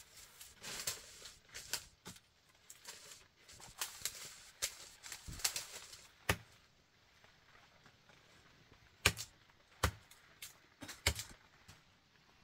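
Dry leaves and brush rustling and crackling as a person pushes through undergrowth on foot. This is followed by a quieter stretch with a few sharp, separate snaps.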